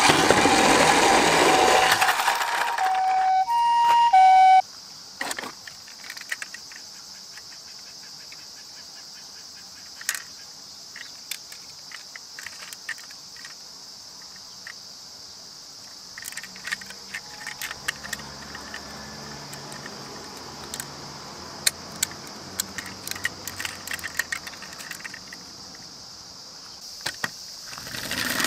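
Toy ambulance's electronic siren sounding, ending in a few alternating two-pitch notes of a hi-lo siren and cutting off about four and a half seconds in. Then faint scattered clicks and clinks of toy vehicles being handled in a cardboard box, over a steady faint hiss.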